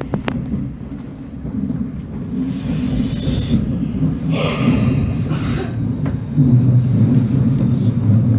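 Class 707 electric multiple unit running along the track, heard from inside the passenger carriage: a steady low rumble of wheels and running gear that grows louder, stepping up about six seconds in, with two brief rushing noises midway.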